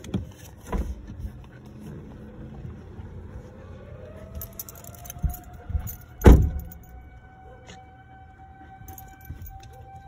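Outdoor tornado warning siren, heard from inside a car, winding up: its pitch climbs for about a second and a half about halfway in, then holds a steady tone. Over it come knocks and jingling close by, with one loud thump about six seconds in.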